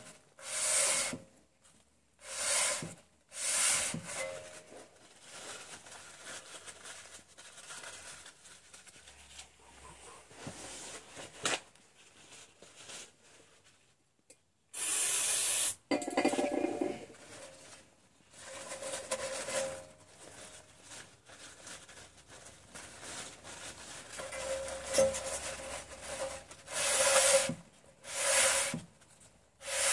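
A rag rubbing across a car's rear brake disc in repeated wiping strokes, each a short swish roughly one to one and a half seconds apart. Near the end the disc is turned by hand while it is being wiped.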